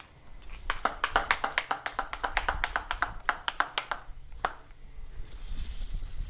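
Hand-pumped garden pressure sprayer being pressurised: a quick run of sharp pump-stroke clicks, several a second, then one more stroke. Near the end comes a short hiss, the sprayer's nozzle letting off the detergent solution.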